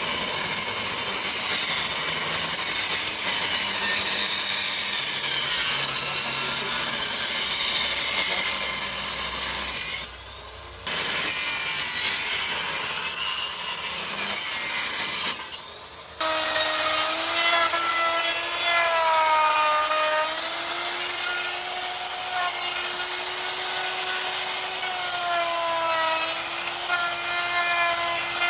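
Angle grinder grinding into wood: a loud, continuous abrasive noise, with the motor's whine rising and falling in pitch as the load changes in the later part. The sound drops out briefly twice, about ten and fifteen seconds in.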